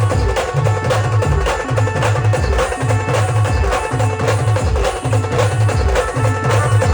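Live Maharashtrian wedding-style band playing a 'pavri' rhythm piece. Drums beat a heavy repeating bass pattern about once a second under quick percussion strokes and held melody notes.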